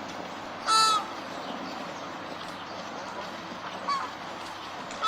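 Flamingo honking: one loud, short nasal honk about a second in, a faint one near four seconds, and another just starting at the end, over a steady background hiss.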